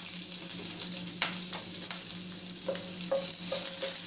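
Sliced green chillies and mustard seeds sizzling in hot oil in a non-stick pan, with a few sharp pops from the spluttering seeds. From about halfway through, a wooden spatula stirs them in short strokes.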